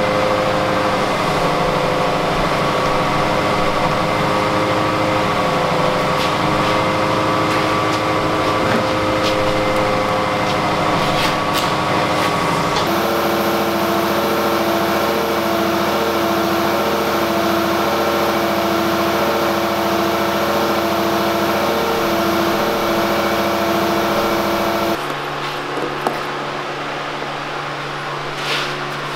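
Steady machine hum with several steady tones over it. The pitch pattern changes abruptly about 13 seconds in and again, slightly quieter, near the end.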